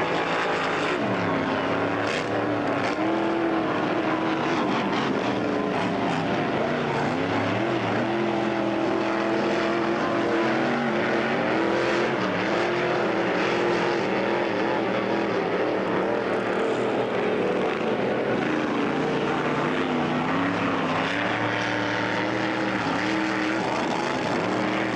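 Racing powerboat engine running hard at speed, a loud steady drone whose pitch wavers up and down.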